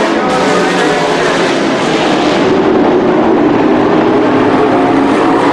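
Several dirt-track race truck engines running at speed around the oval, their pitch rising and falling as trucks pass, loudest in the second half.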